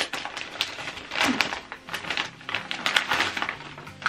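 Iridescent gift wrap being torn open and crinkled by hand, with the crackle of bubble wrap underneath: an irregular run of rustles and crackles, loudest a little over a second in and again about three seconds in.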